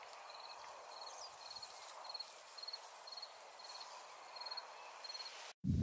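A cricket chirping: short pulsed chirps at one high pitch, evenly repeated about twice a second over a faint hiss. The sound cuts off abruptly just before the end.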